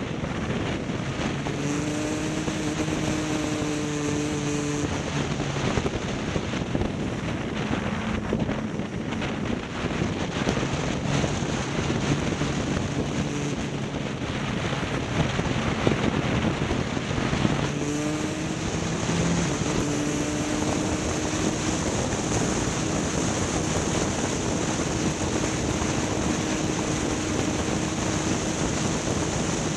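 A motor vehicle's engine running under way, its tone shifting in pitch a few times, over a steady rush of wind and road or water noise from the motion.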